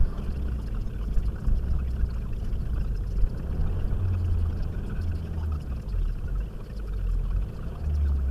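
Low engine and road rumble heard inside the cabin of a Renault Mégane RS Red Bull RB8 (2.0-litre turbo four-cylinder) driving through town, swelling a little around the middle and again near the end.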